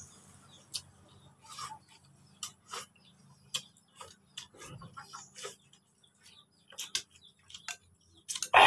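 Close-up mukbang eating sounds: irregular wet clicks of chewing and lip smacking as rice and noodles are eaten by hand, with a louder mouth sound near the end.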